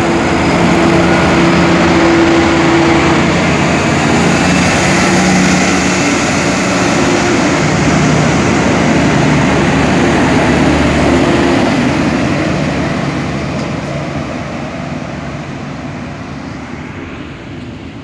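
Diesel engines of a Thai 'Sprinter' diesel multiple unit (a British-built Class 158) running under power as it pulls out and passes, with wheel and rail noise over a steady engine hum. The sound fades over the last several seconds as the train moves away.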